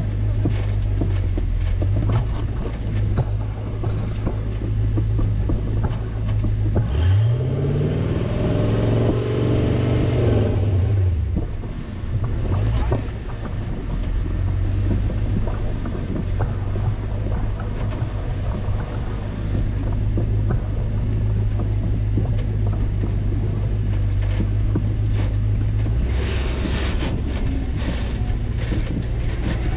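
A rock crawler's engine running steadily at low revs, with one rev that rises and falls back about seven seconds in.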